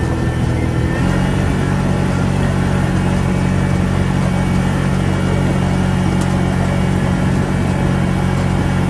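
Riding rice transplanter's engine running steadily as the machine drives through a flooded paddy planting seedlings. The engine note shifts slightly about a second in, then holds even.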